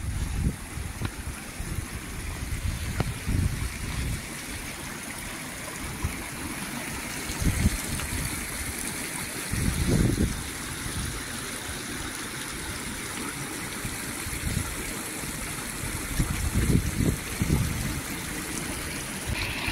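A small moorland stream trickling and gurgling steadily over flat stones. Occasional low rumbles on the microphone come and go over it, strongest about halfway through and again near the end.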